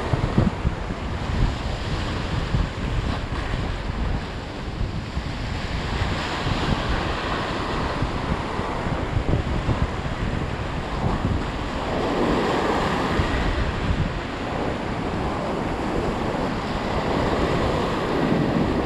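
Sea surf breaking and washing against rocks, with strong wind buffeting the microphone. The wash swells louder twice, about two-thirds of the way through and again near the end.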